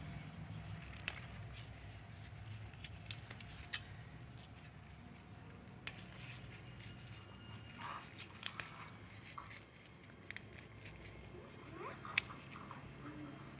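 Malabar spinach leaves and tender stems being plucked by hand: faint scattered snaps and leaf rustling over a low background hum, with the sharpest snap about twelve seconds in.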